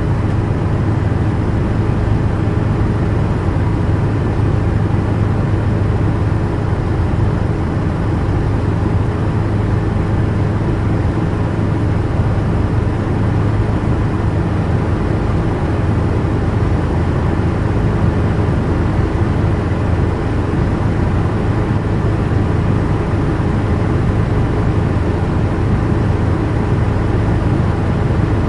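Helicopter in flight heard from inside the cabin: a steady, loud drone of engine and rotor with a strong low hum, holding constant throughout.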